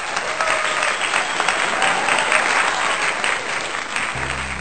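Crowd applauding, a dense patter of many hands clapping. A low, steady music bed comes in near the end.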